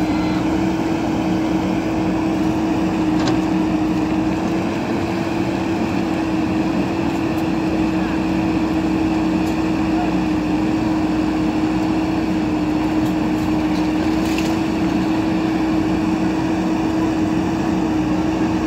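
JCB backhoe loader's diesel engine running at a steady, even drone while the backhoe arm digs into a soil pile.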